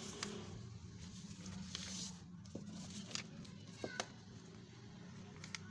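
Paper being handled and folded by hand: a few short crinkles and taps and a brief rustling swish about two seconds in, over a low steady background hum.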